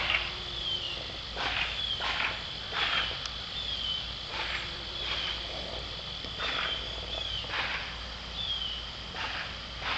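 Insects chirping in garden vegetation: a steady high trill with short falling chirps repeating about every second and a half. Over it come short, dry rasps every second or two, likened to a staple gun.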